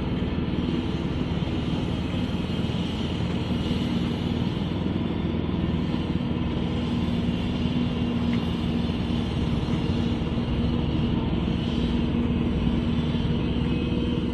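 Walk-behind laser screed machine's engine running steadily as the screed levels wet concrete, a constant low hum with no change in speed.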